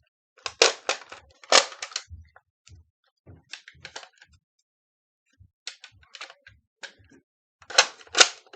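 Nerf Barrel Break blaster clicking and clacking as it is handled and primed, then two loud snaps about half a second apart near the end as it fires twice.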